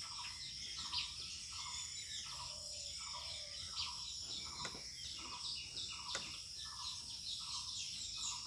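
Background animal sounds: a steady high insect drone, with a short call repeated evenly about twice a second. Faint scratches of a pen writing on paper come through now and then.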